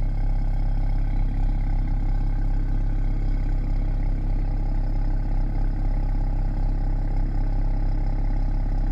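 Car engine idling with a steady low rumble that cuts off suddenly near the end.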